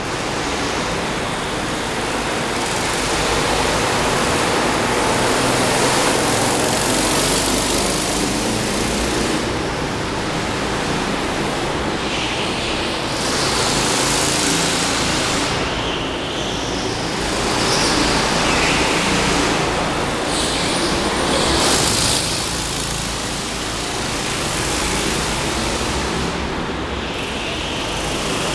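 Go-kart engines running as karts lap the track, the sound swelling and easing again several times as they pass and move away, heard inside a large hall.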